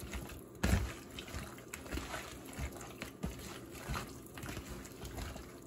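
A bare hand squishing and kneading raw sliced beef in a soy-sauce marinade in a plastic bowl, in irregular short strokes, one louder less than a second in.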